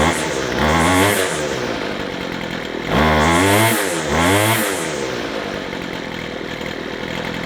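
McCulloch strimmer's small two-stroke engine revved three times, the pitch rising and falling each time, then settling into a steady idle. It is running well after its carburettor jets were readjusted, a stopgap for a hardened carburettor diaphragm.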